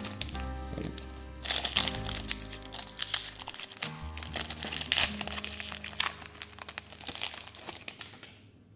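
Foil wrapper of a Pokémon trading-card booster pack crinkling as it is handled and torn open, in crackly bursts starting about a second and a half in, over background music.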